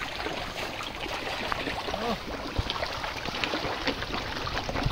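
A crowd of feeding fish splashing at the water surface as they snatch food thrown to them: a steady wash of water broken by many small, quick splashes.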